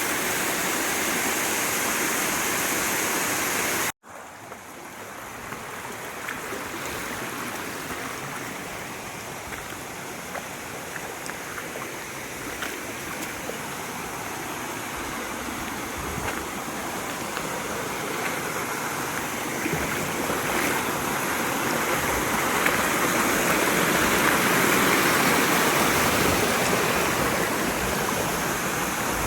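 Mountain stream water rushing over rocks. About four seconds in it cuts off abruptly, then comes back quieter and builds steadily louder toward the end.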